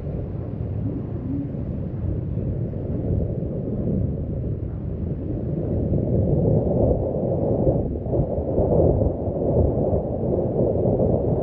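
Low, gusting rumble of wind buffeting the microphone on the deck of a moving river cruise ship, growing louder in the second half.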